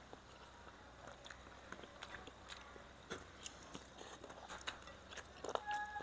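Faint chewing and mouth sounds, with many small short clicks, from eating rice and curry by hand. Shortly before the end, a steady pitched tone begins.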